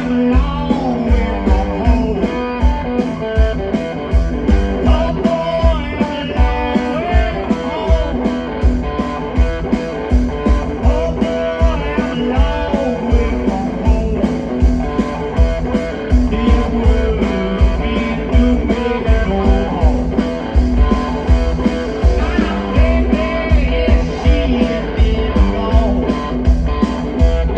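Live blues-rock band playing: electric guitar over drums keeping a steady beat, with a singer's voice.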